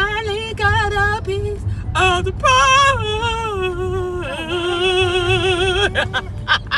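A woman singing a melody with vibrato, holding a long note near the end, over the low rumble of a car driving on the road, heard from inside the car.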